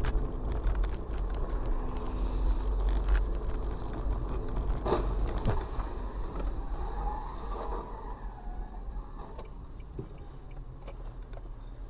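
Car driving on a wet road, heard from inside the cabin: a steady low road-and-engine rumble, with a few sharp knocks about five seconds in.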